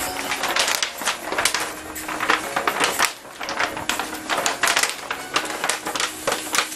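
PVC heat-shrink sleeve crinkling and crackling as it is handled and pulled down over a battery pack: a dense, irregular run of sharp plastic crackles.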